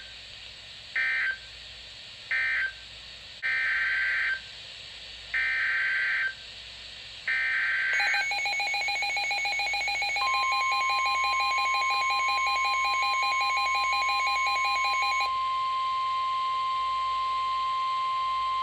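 Emergency Alert System (SAME) data bursts, warbling digital chirps: three short end-of-message bursts, then three longer header bursts that open a new severe thunderstorm warning. Then a rapidly pulsing electronic alert beep, and from about ten seconds in the steady 1050 Hz NOAA Weather Radio warning alarm tone.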